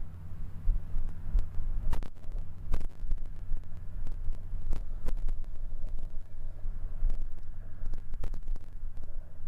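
Claas and Fendt tractors pulling tillage implements across a field: a low, steady engine drone. Wind buffets the microphone, and there are scattered short ticks.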